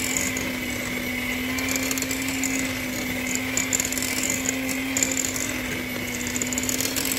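Electric hand mixer running steadily at its lowest speed, its motor humming at one unchanging pitch as the beaters churn thick waffle batter in a glass bowl.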